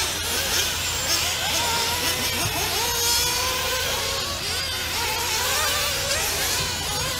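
Several nitro-powered RC racing cars running on the track, their small engines revving up and down as overlapping rising and falling whines.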